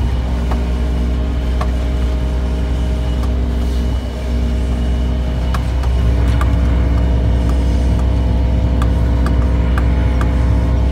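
Large diesel farm tractor engine running steadily under load while it pulls a drainage-tile plow through the soil. There is a constant low drone, with a few light clicks and knocks scattered through it.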